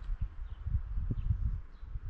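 Irregular low knocks and rumbling close to the microphone, with faint, short, high bird chirps scattered through.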